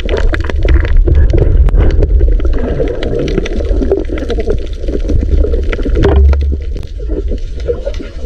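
Underwater water noise around a submerged camera: a heavy low rumble with gurgling and scattered sharp clicks as the diver moves.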